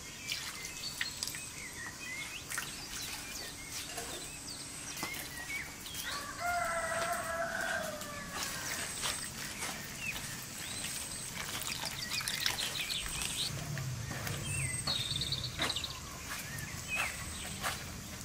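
A chicken gives one long call of about two seconds a third of the way in, with small birds chirping around it. Hands squish and slap wet dough and flour in a metal bowl, making soft clicks throughout.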